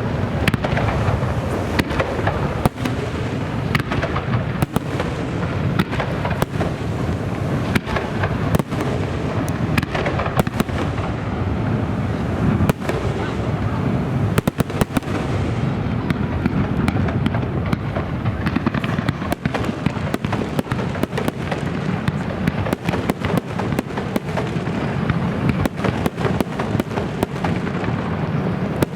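Aerial fireworks display: a dense, unbroken barrage of shell bursts and crackling, with sharp bangs several times a second throughout.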